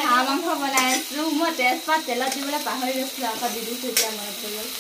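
Duck meat frying and sizzling in a wok over a wood fire, stirred with a metal ladle that knocks against the pan about a second in and again near the end. A high-pitched voice rises and falls over the sizzle.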